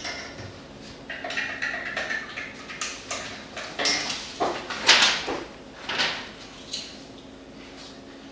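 Kitchen clatter: dishes and cutlery clinking and knocking on a counter, a string of separate clinks and knocks with the loudest about five seconds in. A steady low hum runs underneath.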